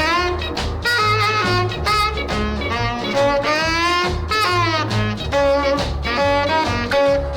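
Instrumental passage of a 1950s swing/rhythm-and-blues record: a horn line, likely saxophone, bending in pitch over upright bass and a steady beat, with no singing.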